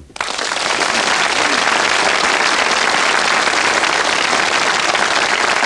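Studio audience applauding, bursting in suddenly and holding steady.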